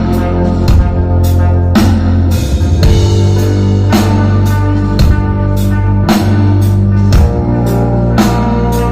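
Live rock band playing: a drum kit keeping a steady beat with cymbal crashes, over electric guitar and sustained low bass notes.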